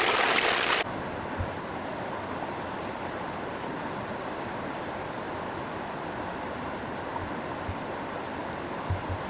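Rushing river water that cuts off abruptly about a second in, leaving a quieter, steady rush with a few soft low thumps.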